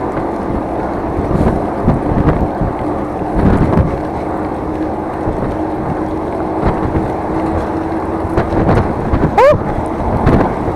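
Strong wind buffeting the microphone on a moving ride, over a steady vehicle drone. About nine and a half seconds in, the rider gives a short yell that rises in pitch.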